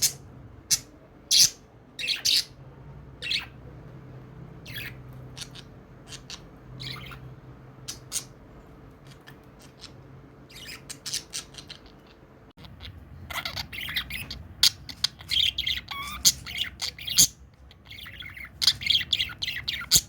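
Pet budgerigars chirping. At first the short, high chirps come one at a time with gaps between them. In the last seven seconds or so they run together into dense, rapid chirping and chatter.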